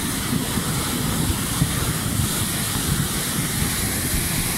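Muddy floodwater rushing in a fast torrent over rocks and debris: a steady, loud rush with a deep rumble underneath.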